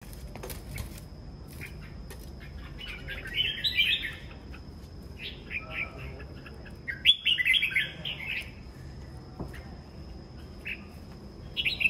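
Red-whiskered bulbuls singing in several short, rapid song phrases, the loudest about seven seconds in. A faint steady high whine runs underneath.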